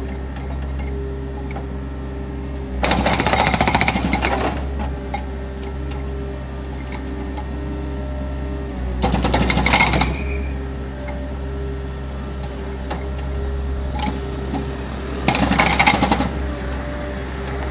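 Skid-steer loader's engine running steadily while its hydraulic breaker hammers the pavement in three short bursts of rapid blows, about three, nine and fifteen seconds in.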